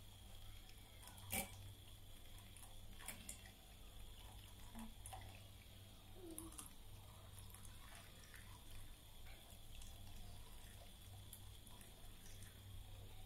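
Fork beating raw eggs in a glass dish, faint, with a few sharp clinks of the fork against the glass, the loudest about a second in.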